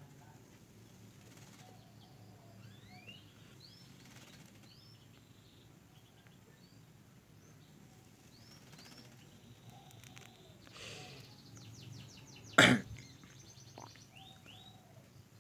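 Small birds giving short, faint, rising chirps now and then. Near the end comes a quick run of ticks, then one brief, sudden loud rush of noise.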